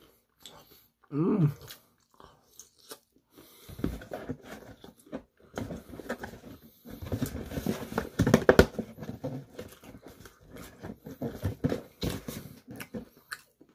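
A person biting into and chewing crispy Korean fried chicken close to the microphone: irregular crunches and chewing noises, heaviest in the middle stretch.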